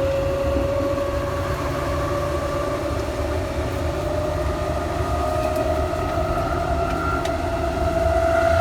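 Electric train's traction motors whining as it picks up speed, the whine rising slowly and steadily in pitch over a low running rumble.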